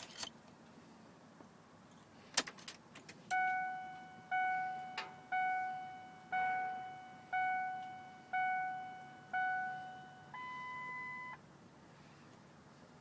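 Keys jangling and a click, then a Ford F-450's dashboard warning chime dinging seven times at about one per second, followed by a steady beep lasting about a second. This is the key turned to run before cranking the 7.3 L Power Stroke diesel; the engine is not cranking yet.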